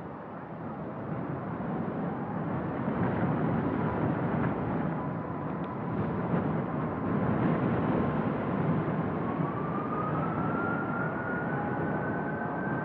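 Cargojet Boeing 757 freighter's jet engines spooling up to takeoff thrust: a rumble that grows steadily louder, with a whine that rises in pitch about nine seconds in.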